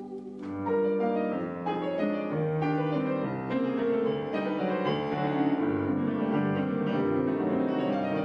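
Steinway grand piano played solo in a classical piece, a busy run of notes and chords that comes in louder about half a second in.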